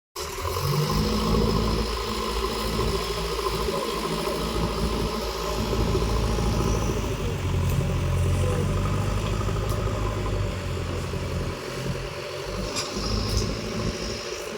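Backhoe loader's diesel engine running steadily, a low hum that swells and eases slightly, with a few faint clicks.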